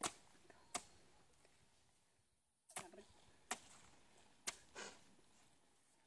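A machete striking a green coconut to chop it open: about six sharp, separate blows at uneven spacing.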